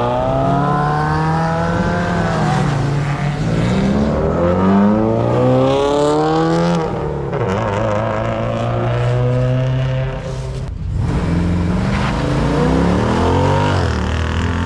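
Several cars accelerating hard one after another as they pull away, engines revving up with the pitch climbing and dropping back again and again.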